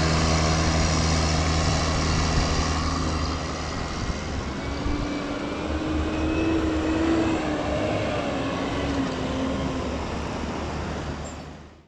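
Heavy farm machinery's diesel engine running steadily during the maize silage harvest, with a higher whine that rises and falls through the middle, then fading out at the very end.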